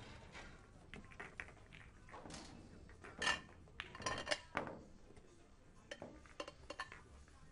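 Billiard balls clacking against one another as they are gathered and set into a triangle rack on the pool table. The loudest cluster of sharp clicks comes about three to four and a half seconds in, with lighter clicks around six to seven seconds.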